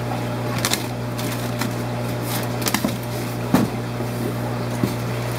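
Steady low hum under a few sharp clicks and rustles of shipping boxes and packing being handled while a fish shipment is unpacked.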